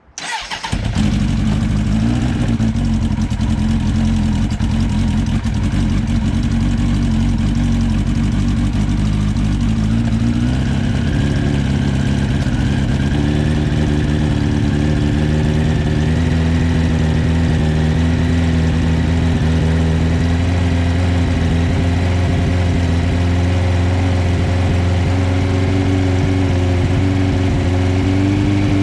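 Inline-four engine of a 1985 Suzuki GSX-R slabside motorcycle, fitted with Mikuni carburettors, catching suddenly and then idling steadily. Its idle rises a little about a third of the way through.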